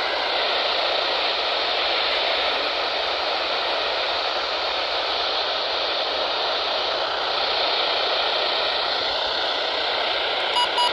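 Steady FM static hiss from a weather radio receiver while the NOAA Weather Radio voice drops out, a weak or lost signal. A short double beep comes near the end.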